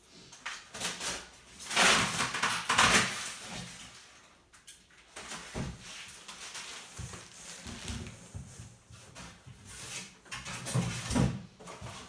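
Packing materials being handled as a cardboard box is unpacked: plastic wrapping rustling and crinkling, loudest about two seconds in and again near the end, with small knocks and scrapes against the cardboard in between.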